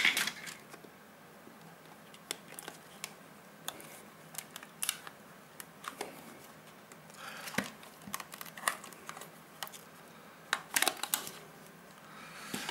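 Handling noise as a Victor VC97 multimeter is pulled out of its rubber holster: scattered clicks of plastic and rubbing of rubber, with longer scrapes about seven and eleven seconds in.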